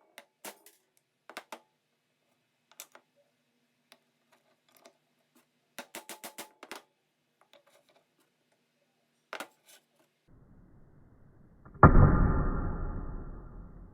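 Light metallic clicks and taps, single and in quick runs, from parts of an old aluminium-alloy adjustable wrench being handled. Near the end a loud rushing noise starts suddenly and fades.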